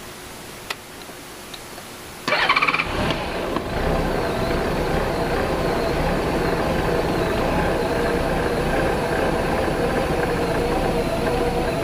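A couple of small clicks, then a Honda GL1800 Gold Wing's flat-six engine is started about two seconds in: a brief crank and catch, then it settles into a steady idle.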